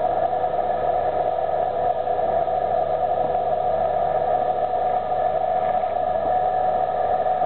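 Lamtrac 6125 tracked forestry mulcher running under load, its engine and mulching head clearing brush. A loud, steady drone with a strong constant whine that does not change.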